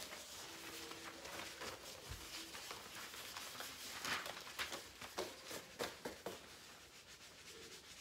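Sheets of construction paper and paper folders rustling and flapping as they are leafed through quickly, with many short crinkles and flicks.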